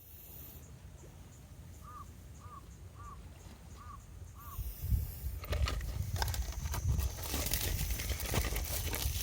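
A crow cawing five times in quick succession over a low outdoor rumble, then a louder stretch of crunching and clicking noise from about halfway.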